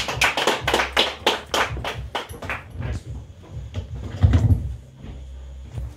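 Audience clapping at the end of a stand-up set, thinning out after about three seconds. About four seconds in come low thumps of a handheld microphone being handled as it is passed over.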